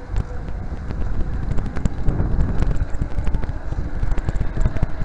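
Wind buffeting the action camera's microphone as a B'twin Rockrider ST100 bicycle rolls over paving tiles, with a rumble and a run of irregular clicks and knocks from the bike rattling over the joints.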